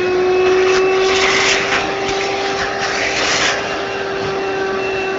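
A small electric motor running at a steady whine, with a rushing hiss rising over it between about one and three and a half seconds in.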